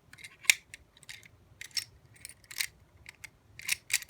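A double-bitted skeleton key being worked in a lever lock: irregular metallic clicks and scrapes as the key turns against the levers and bolt, the sharpest about half a second in.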